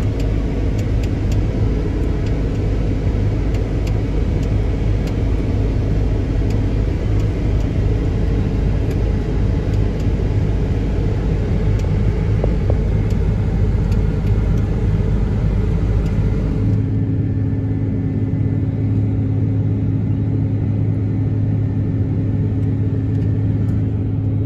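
Steady machine rumble and hum from a combine harvester running while it cuts grain, heard from inside the cab. About 17 seconds in the sound changes suddenly to a deeper, even hum with less hiss.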